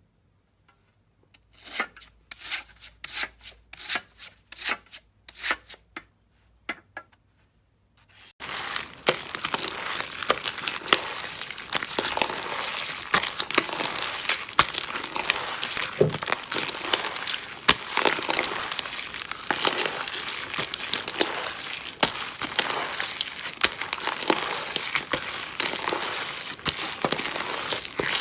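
Slime being handled and squished. It starts as separate short crackly squishes about twice a second, then about eight seconds in switches abruptly to a dense, continuous crackling.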